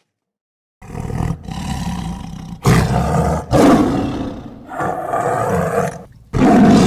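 Tiger roaring: about five deep, rough roars, each about a second long, with short silences between them.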